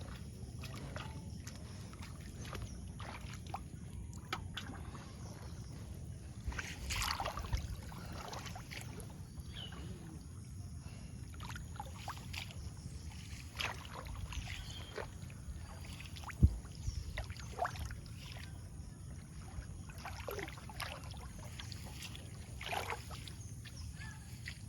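Water splashing and sloshing in irregular bursts over a steady low rumble, with one sharp knock about sixteen seconds in.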